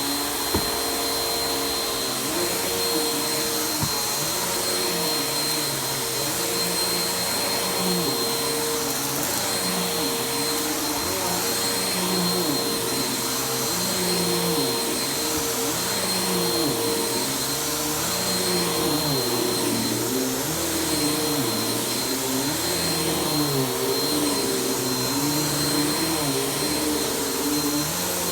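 Household vacuum cleaner running on carpet: a steady motor whine with a lower hum that wavers up and down every second or two.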